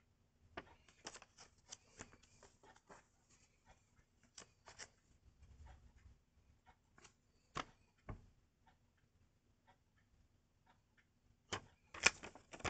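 Paper pocket timetables being handled: scattered light rustles, crinkles and taps of stiff paper, with the loudest flurry near the end as the cards are swapped and set on a wooden table.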